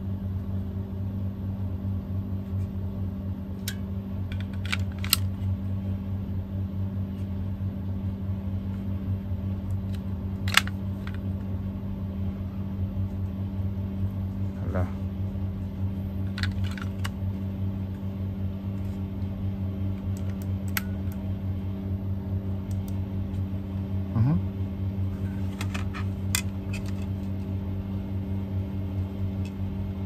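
Steady low mechanical hum, with a scattering of small sharp plastic clicks as a Logitech wireless mouse and its AA battery are handled, the battery taken out and refitted.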